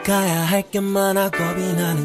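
Background music: a song with a sung melody line.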